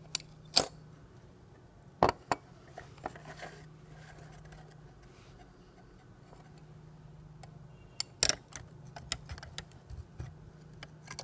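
Scattered sharp clicks and taps of small hard parts being handled while a clock is worked on, loudest in the first few seconds and again about eight seconds in, over a faint steady hum.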